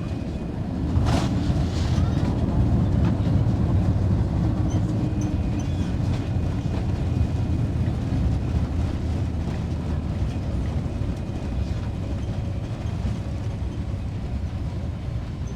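Cabin noise of a Boeing 787-8 landing: a thump about a second in as the main wheels touch down, then a loud steady rumble from the runway rollout that eases slowly.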